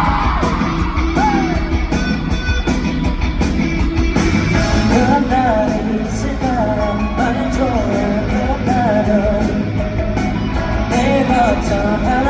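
Live rock band playing, with guitar, bass and drums on the song's intro. A sung vocal melody comes in about four and a half seconds in.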